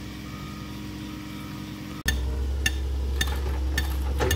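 A steady low hum, then about two seconds in a louder deep, steady rumble of an excavator's diesel engine running at a construction site, with sharp clicks or clinks roughly every half second over it.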